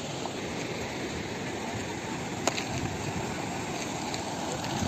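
Steady rushing of a fast, turbulent river. A single sharp click about halfway through.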